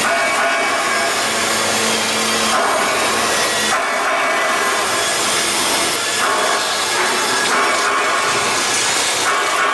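CNC beam drilling line working a steel beam: a loud, steady machining noise that changes its tone in steps every few seconds.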